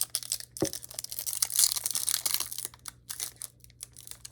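Packing material crinkling and scraping as it is pulled out of a cardboard box, irregular and loudest in the middle.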